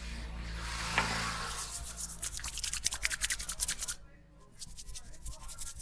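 Barber's hands rubbing and scrubbing rapidly on a scalp and hair during a head massage: a fast rhythm of scratchy strokes, about eight a second, after a single click about a second in, then going on more quietly near the end.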